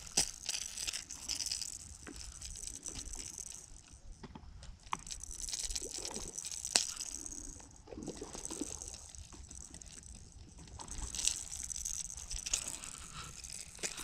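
Close rustling and scuffing of clothing and dry grass as the wearer shifts on the bank, in several stretches, with scattered sharp clicks.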